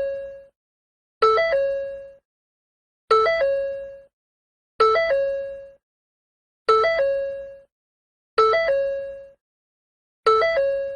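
Ford door-ajar warning chime repeating about every two seconds, six times: each chime is a quick three-note figure ending on a held note that fades out before the next one.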